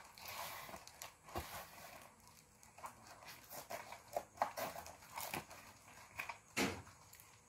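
Packing tape and clear plastic wrap being torn and peeled off a cardboard box: irregular crinkling and rustling with sharp cracks, the loudest a little past six and a half seconds in.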